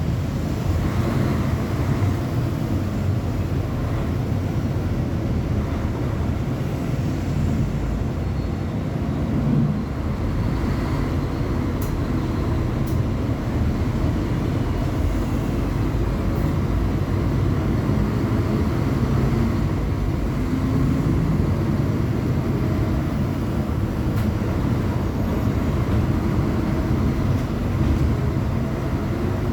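Mercedes-Benz O500UA articulated city bus's diesel engine running steadily, a heavy low rumble.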